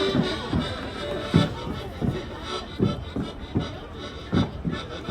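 Music playing for a klompen dance, with the thuds of wooden clogs stamping on the ground about twice a second.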